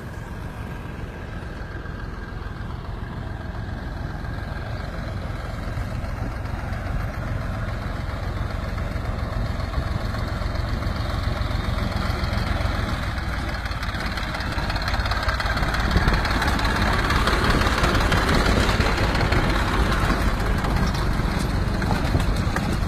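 Steady low rumble of a moving vehicle, growing gradually louder, with a hiss that strengthens in the second half.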